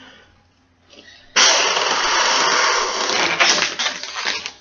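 Yellow 350 twisting balloon being inflated: a sudden steady rush of air starts about a second and a half in and lasts about two seconds, then gives way to a run of short rubbing sounds from the latex as it is handled.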